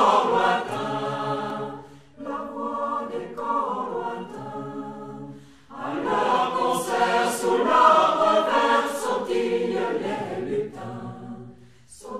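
A choir singing a French song, apparently unaccompanied, in phrases with short breaths about two and six seconds in.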